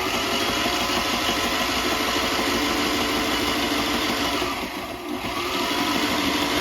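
Sailrite walking-foot sewing machine running steadily, stitching through leather, with a brief slowdown about five seconds in.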